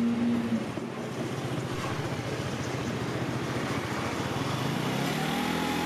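City bus running, heard from inside the cabin: a steady rumble and road noise, with an engine tone that rises and then levels off near the end.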